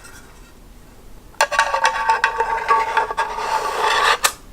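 A continuous rasping scrape of hard parts rubbing together, as the hard drive is pushed into the other part of its housing. It starts abruptly about a second and a half in and cuts off about three seconds later.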